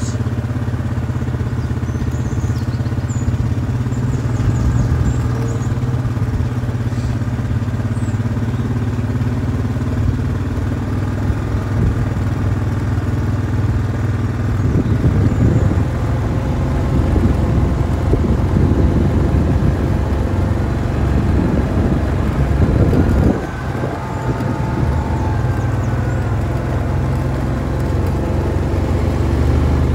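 A farm vehicle's engine running steadily at low speed, with a brief drop in level about two-thirds of the way through.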